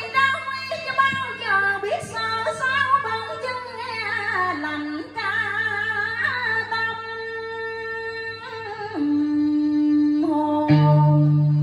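Woman singing a slow, ornamented Vietnamese cải lương melody into a microphone, with wide vibrato on long held notes over quiet sustained accompaniment. Near the end a louder low guitar note comes in.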